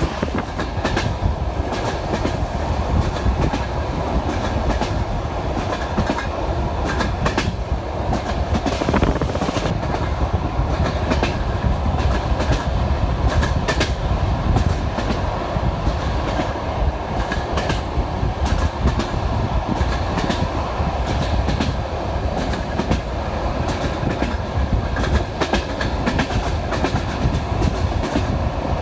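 Passenger train running along the line, heard from an open carriage window: a steady rumble of wheels on rail with clickety-clack as the wheels pass over rail joints at irregular intervals.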